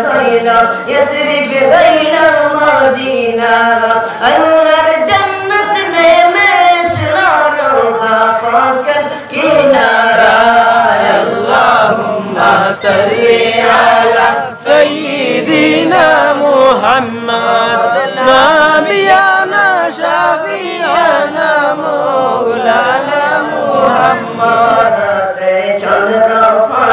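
A boy and men singing a naat together without instruments, several voices chanting a devotional melody that rises and falls in long sung phrases.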